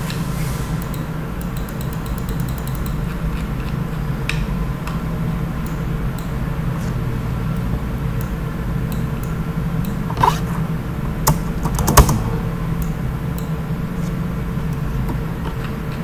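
Computer mouse and keyboard clicks: scattered single clicks and a run of fine ticks, with the loudest cluster of rapid clicks about twelve seconds in, over a steady low hum.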